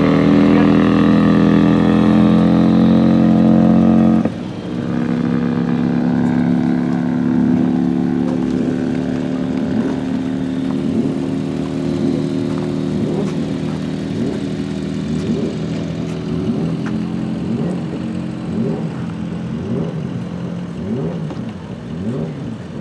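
A small engine running steadily. About four seconds in it suddenly gets quieter and keeps running, and later its note wavers up and down.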